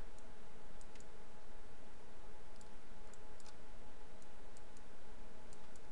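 Scattered light computer mouse clicks, about a dozen, as vertices are selected and dragged, over a steady microphone hiss with a faint steady hum.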